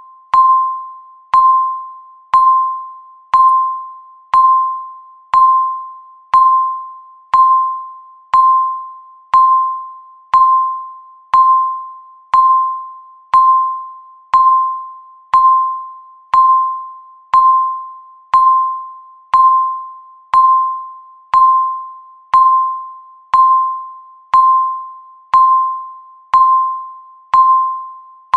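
Countdown timer beeping once a second: a single mid-pitched electronic beep, each one starting sharply and fading out before the next, always at the same pitch.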